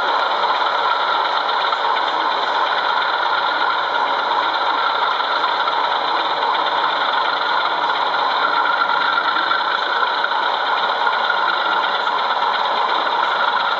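Steady diesel engine sound from a sound-fitted model diesel locomotive, running evenly.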